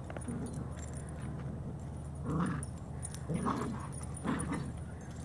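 Dog vocalizing in play while tugging on a rope toy, three short calls about two, three and a half and four and a quarter seconds in.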